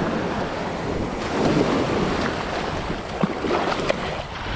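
Small surf waves breaking and washing up over the sand at the water's edge, one wash swelling up about a second in, with wind buffeting the microphone.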